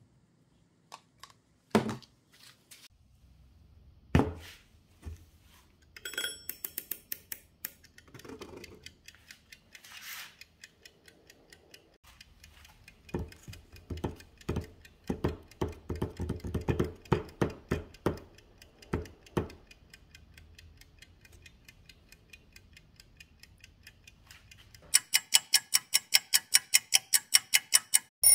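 A few knocks and clinks, then a mechanical kitchen timer being wound with a long run of ratcheting clicks. Near the end its bell rings with rapid, even strikes, about six a second.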